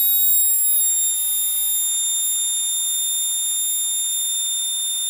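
Group 12 slot car motor running free, a steady high-pitched whine near 3,800 Hz that sinks slowly toward about 3,600 Hz as a Mazzetti Defender 2 chassis is held close to it: the chassis drags the motor's speed down.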